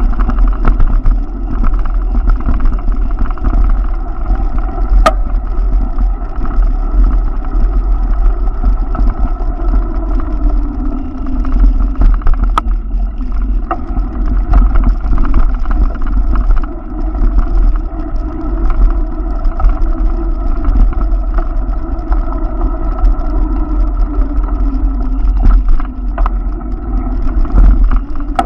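Steady rumble of wind and road noise on the microphone of a camera moving along a bike lane, with a sharp click about five seconds in and another near the middle.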